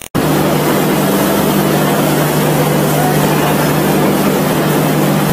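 Train running, with a steady low engine hum under a loud, even rushing noise that cuts in abruptly at the very start.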